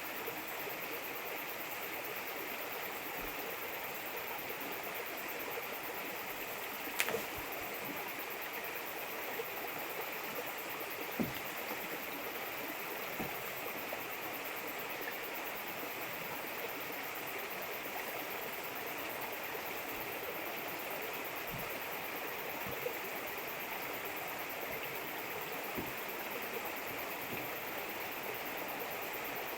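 A steady rushing hiss, with a few faint short clicks and knocks over it, the clearest about seven and eleven seconds in.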